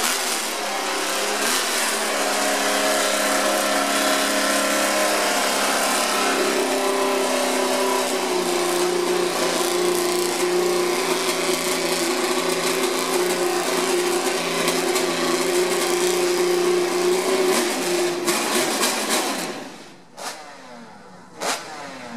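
1968 Honda RA301 Formula One car's 3-litre V12 engine running steadily during warm-up, then shut off near the end; a few sharp clicks follow.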